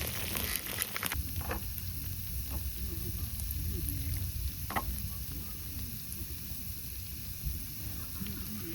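Food sizzling steadily in a hot pan, with a few faint clicks.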